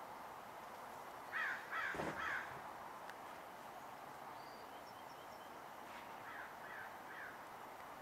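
Harsh calls of a corvid: three in quick succession about a second and a half in, then three fainter ones near the end.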